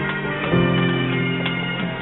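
Bagpipe band playing a tune: sustained piped notes that change about half a second in and again near the end.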